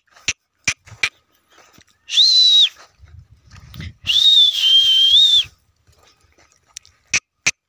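A herder's high whistles to drive a herd of Banni buffalo: a short whistle about two seconds in, then a longer one that dips slightly in the middle. A few sharp clicks come before and near the end.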